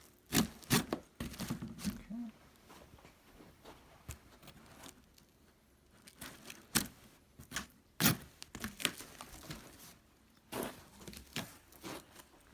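Cardboard shipping box being cut and torn open with a multi-tool knife blade: tape and cardboard tearing and scraping, with several sharp knocks at irregular moments.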